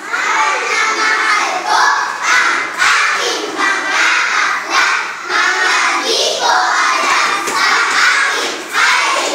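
A chorus of young children's voices performing loudly in unison, in short phrases with brief breaks between them.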